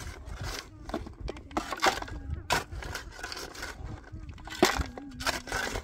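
Digging in stony soil by hand: a shovel scraping and rocks clattering as they are loaded into a basin, a string of sharp knocks.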